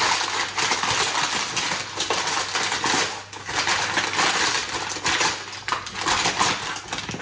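A parcel of replacement stove and oven control knobs being unpacked by hand: packaging crackling and rustling, with many small clicks and clinks as the hard knobs are handled.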